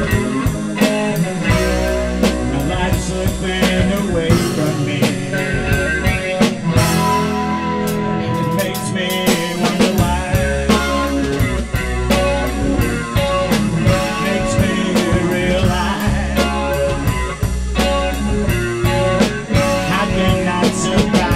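Live blues-rock band playing an instrumental passage between sung lines: guitar over a drum kit with a steady beat.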